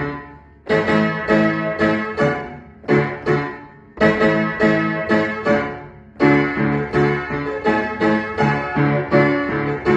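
Upright acoustic piano played by hand: chords and notes struck in short phrases, each one ringing and dying away, with brief breaks between phrases about half a second in and around four seconds.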